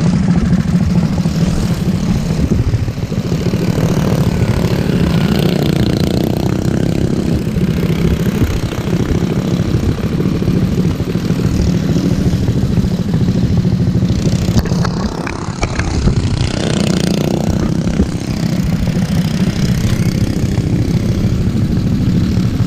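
Racing lawn mower engines running loud and steady, with the throttle easing off briefly about fifteen seconds in before picking up again.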